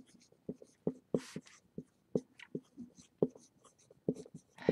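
Dry-erase marker writing on a whiteboard: a quick irregular run of short taps and scratchy strokes from the felt tip as letters are formed, with one longer drawn stroke about a second in.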